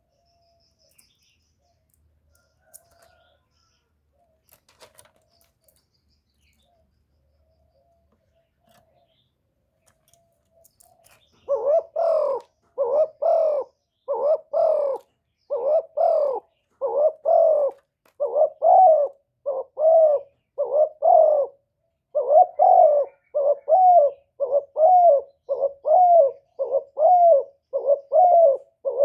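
Spotted dove cooing: after a quiet start, a long run of repeated low coos begins about eleven seconds in, coming a little more than once a second without a break.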